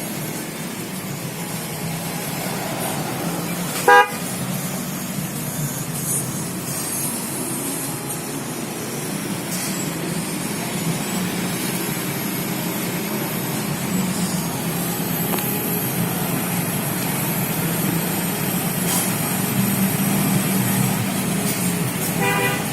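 Denso waterproof snail horns giving one short, loud toot about four seconds in, and a fainter brief one near the end, over a steady low hum.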